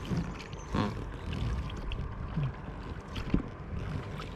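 A small boat moving on the river, with water noise and wind on the microphone and a single knock about three seconds in.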